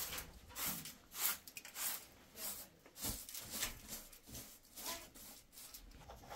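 A steady rhythm of brisk swishing strokes, a little under two a second, like something worked by hand.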